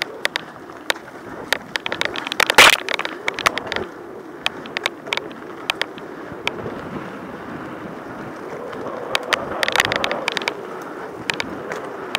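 Mountain bike riding down a dirt trail: tyres rolling on loose ground, with the bike clattering and knocking sharply over bumps and roots. The loudest clatter comes about two and a half seconds in, and another run of rattles near ten seconds.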